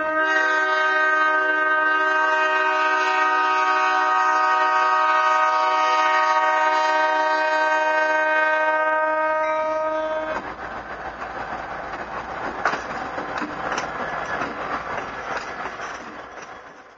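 BNSF diesel locomotive's multi-chime air horn sounding a long, steady blast for a grade crossing, cutting off about ten seconds in. The locomotive and freight cars then roll past with a rumble and scattered clicks from the wheels on the rails, fading out near the end.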